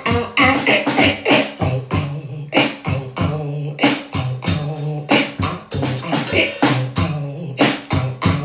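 Beatboxing: a steady run of sharp mouth-made percussive hits, about three to four a second, with a low hummed tone held between many of them.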